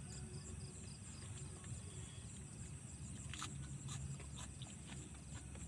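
Night insects chirping steadily: a continuous high trill with a quicker, evenly pulsed chirp beneath it, over a low rumble and a few faint clicks.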